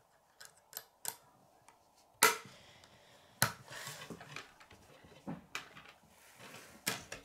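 Plastic K'nex pieces clicking as rods are snapped into a connector, with small knocks as the parts are set down on a wooden tabletop: scattered sharp clicks, the loudest about two and three and a half seconds in.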